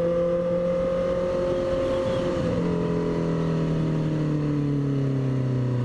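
Honda CB650F inline-four motorcycle engine running loud while riding, holding a steady note, with a brief break about two and a half seconds in, after which the engine note falls steadily.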